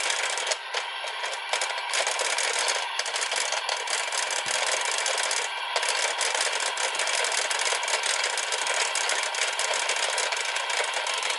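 Electronic sound effects of the Zenkai Buckle toy's Gowon finisher, played loud and harsh through its small built-in speaker as a continuous noisy blare. It cuts off right at the end.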